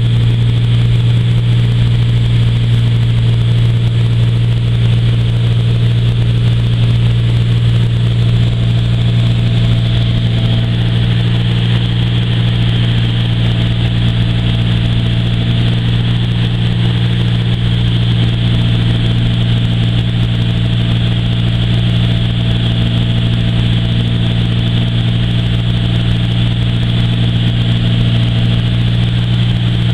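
Bellanca Super Viking's six-cylinder piston engine and propeller droning steadily inside the cabin during the climb after takeoff, with a steady rush of air over the airframe.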